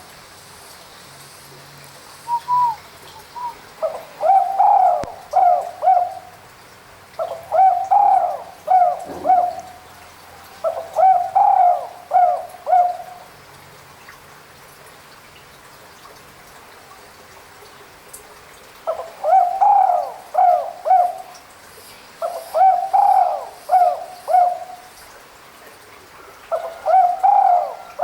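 Spotted dove cooing: six short phrases of three or four coos each, with a gap of several seconds midway.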